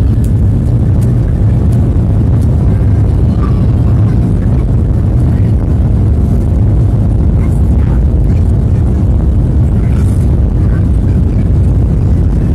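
Jet airliner's turbofan engines heard from a cabin seat over the wing: a loud, steady low rumble as the plane moves on the ground.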